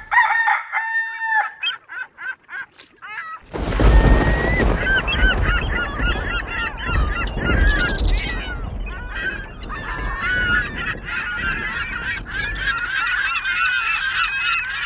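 A flock of birds honking and calling over one another, goose-like, with a few separate calls first; about three and a half seconds in, a low rumble comes up under the calls and stays.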